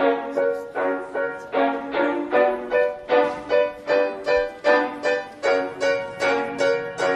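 Music: a repeating melody of short, quickly decaying notes, about three a second, with no voice.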